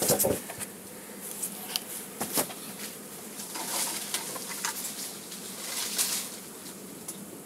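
Honey bees buzzing with a faint steady hum, mixed with scattered knocks and rustles of handling, and a louder thump right at the start.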